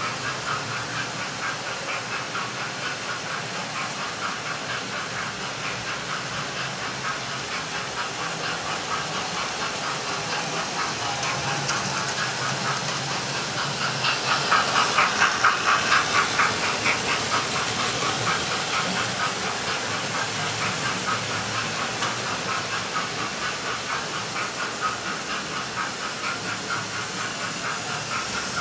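Model trains running round a multi-track model railway layout: a steady rhythmic clatter and hiss of the locomotives and wheels on the track, swelling for a few seconds about halfway through as a train passes close.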